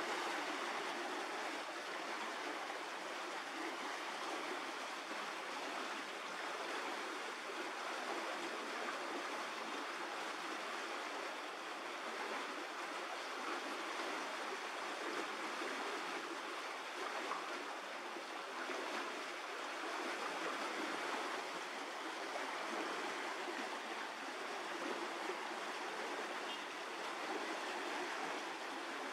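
An even, unbroken rushing noise like running water, with no distinct events in it.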